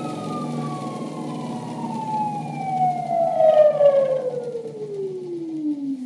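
3D-printed brushless DC motor with a Halbach-array outer rotor, driven by an ESC, whining as it slows down. The whine falls steadily from a high pitch to a low drone, loudest around the middle, over a steady low hum.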